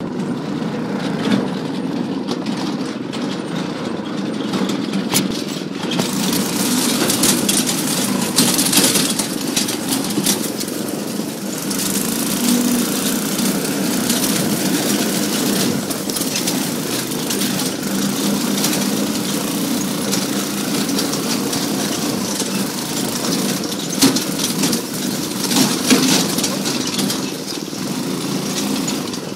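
Off-road go-kart's small engine running steadily as the kart drives over a dirt trail, heard from on board. A rushing hiss joins about six seconds in.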